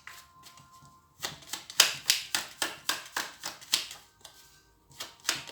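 Tarot cards shuffled by hand: a quick run of sharp card slaps and clicks, about five a second. They start about a second in and stop near the four-second mark, with a few more near the end.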